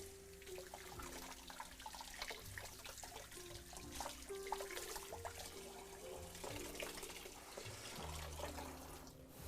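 Kitchen sink tap running, with water splashing irregularly in the sink.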